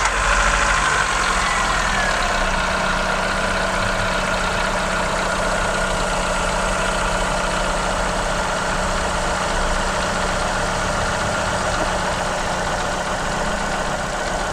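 Chevrolet Aveo's four-cylinder engine idling steadily just after starting. It runs on a newly fitted alternator belt, started up to check that the belt is installed correctly.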